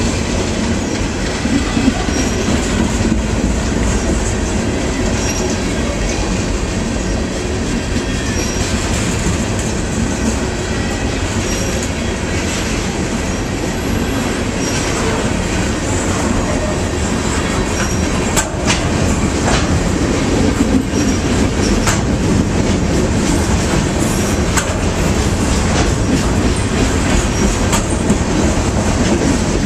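Freight train cars rolling slowly past: a steady rumble and clatter of steel wheels on the rails, with a sharp clank about two-thirds of the way through.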